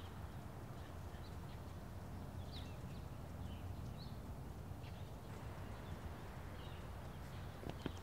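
Faint outdoor ambience: a steady low rumble with scattered short high bird chirps. Near the end, sharp clicks of footsteps on paving begin.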